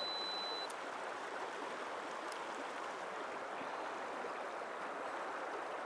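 River water running steadily over stones. About half a second in, a high electronic beep stops and a short click follows: the X100V's self-timer beep and its shutter firing.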